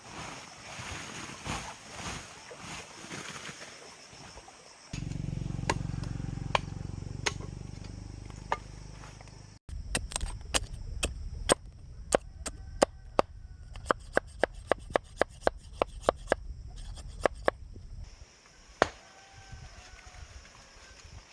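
A quick run of sharp knocks on wood, about two to four strikes a second, stopping abruptly. After a short low hum, a chicken clucks near the end.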